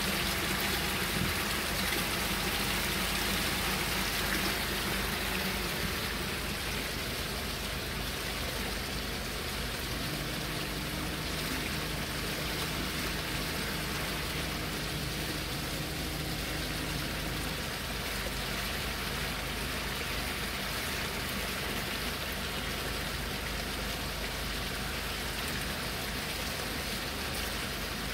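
Steady rushing and splashing of an ornamental fountain, its row of water jets and the water cascading down a stone wall, heard from inside a car.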